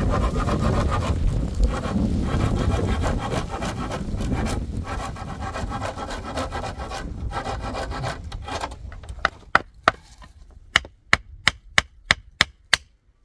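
Hand saw cutting a wooden board with steady back-and-forth strokes, dying away about eight seconds in. Then a hammer knocks a nail into wood about eleven times, roughly three blows a second.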